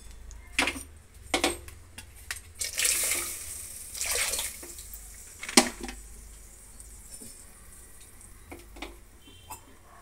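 Water poured in short splashes into tomato masala in a pressure cooker, twice, among sharp clinks of steel vessels and a ladle against the pot; the loudest clink comes a little after halfway.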